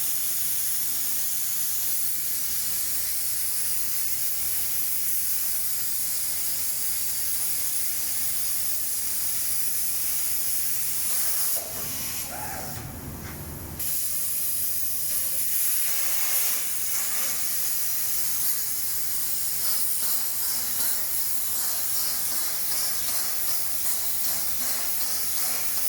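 SAF Plasmatome B 35 CNC plasma torch hissing steadily while cutting. Near the middle the hiss stops for about two seconds, leaving a lower rumble, then the cut starts again.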